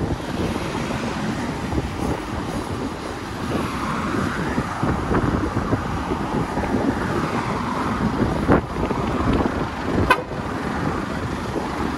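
Heavy truck on the road: a steady rumble of engine and road noise, with two short sharp clicks near the end.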